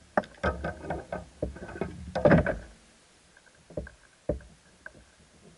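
Knocks and clatter of handling a caught bass and its lure in a plastic fishing kayak: a busy run of hits, loudest about two seconds in, followed by a few single knocks.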